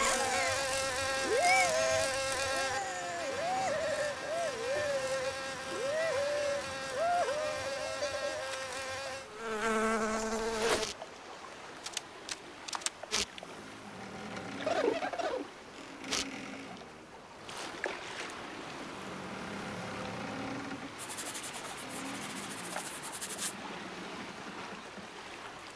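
Cartoon fly's wing buzz: a steady humming drone with little squeaky chirps bending up and down over it. About eleven seconds in it cuts off suddenly, leaving quieter scattered clicks and small squeaks.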